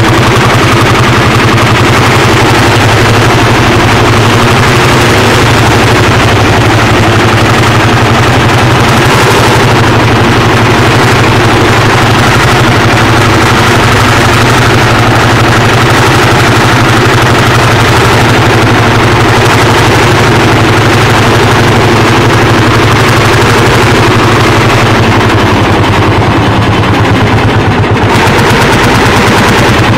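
Lanz Bulldog 55 PS tractor's single-cylinder two-stroke hot-bulb engine running under load at a rapid, even beat while the tractor drives up the Cauberg. It gets a little quieter near the end.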